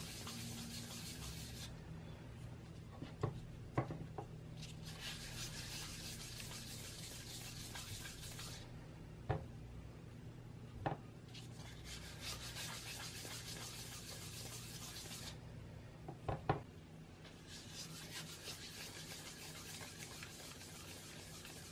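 Truffles being rolled by hand through cocoa powder in a stainless steel tray: four spells of dry rubbing and scraping, each a few seconds long. Between them come a few sharp clicks of something knocking against the metal tray.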